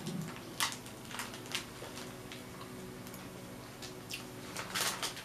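Biting and chewing a crisp caramel-filled waffle cookie while handling its plastic wrapper: a scatter of short crackles and clicks, with a longer crinkly stretch near the end.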